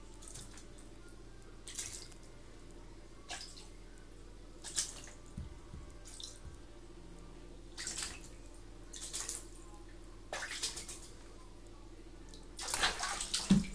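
A cat pawing and wading in shallow bathwater, making short splashes and drips every second or two, with a quick run of louder splashes near the end.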